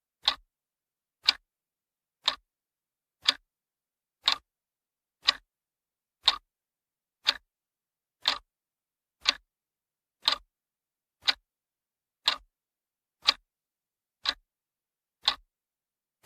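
Sharp, evenly spaced ticking sound effect, one tick a second, sixteen ticks in a row with silence between them.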